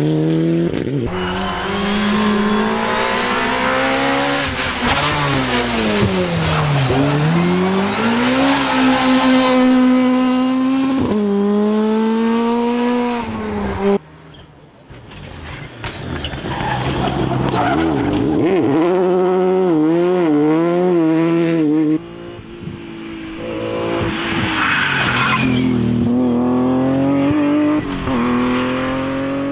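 Rally cars driven hard one after another: engines revving up and down through the gears, the pitch dropping as they brake for corners and climbing again as they accelerate away, with tyre squeal. The sound changes abruptly twice as one car gives way to the next.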